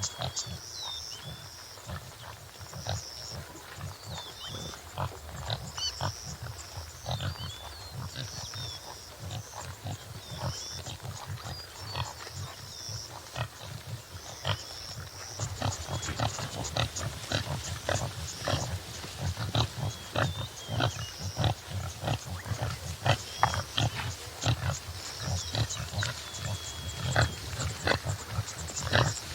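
Topi antelope (Damaliscus lunatus jimela) grunting and snorting, with short low grunts coming in quick succession that grow more frequent about halfway through. Small birds chirp in the background.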